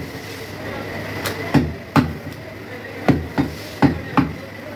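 Butcher's cleaver chopping goat meat and rib bone on a wooden tree-stump block: about seven sharp chops at uneven spacing, in two quick groups.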